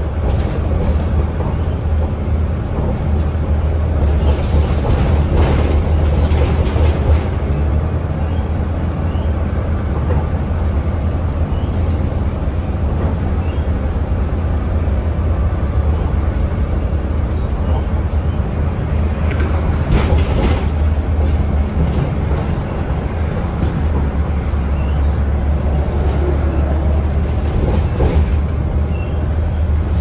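Cabin sound of a 2006 NABI 40-LFW transit bus under way: a steady low drone from its Cummins Westport C Gas Plus CNG engine, mixed with road noise. There are a couple of sharp rattles, about two-thirds of the way in and again near the end.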